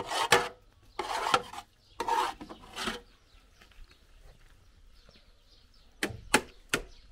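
A metal ladle scraping and scooping macaroni against the inside of a large metal cooking pot, four short rasping strokes in quick succession, then quiet, then three sharp knocks near the end.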